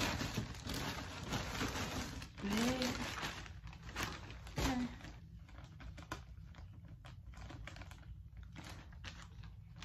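Plastic poly mailer bag rustling and crinkling as tissue-wrapped jeans are slid into it, louder in the first half and then a run of small, irregular crackles.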